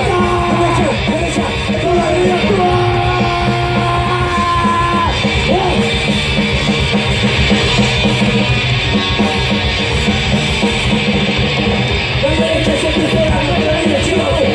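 Punk rock band playing live and loud: distorted electric guitars over drums, with long held notes over the first five seconds or so, then a dense, driving wall of sound.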